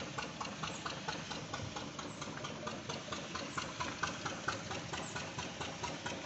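An engine idling, with a rapid, even ticking knock.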